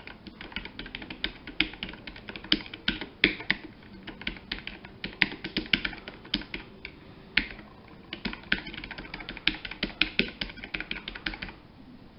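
Keys of a Dragon War GK-002 Dark Sector slim keyboard being typed on in a quick, uneven stream of clicks, with a short pause about halfway and stopping shortly before the end.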